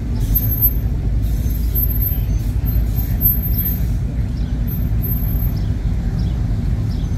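Engines of classic cars and trucks rumbling steadily as they roll slowly past in a line.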